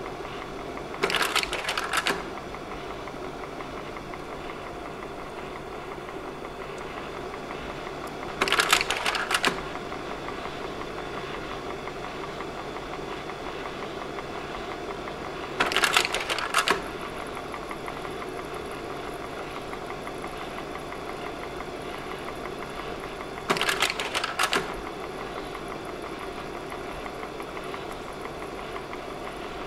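Slide projector running with a steady mechanical whir, its slide-change mechanism clacking four times at even intervals of about seven and a half seconds; each change is a double clatter lasting about a second.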